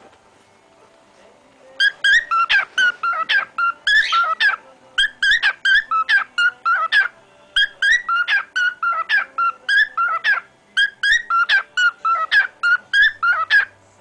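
Male cockatiel whistling a song of short, rapid, repeated chirping notes, starting about two seconds in.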